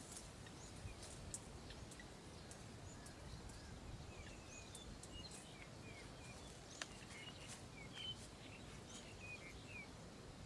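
Faint rural ambience with a low steady rumble; small birds chirp in many short high notes through the second half, with a few sharp ticks.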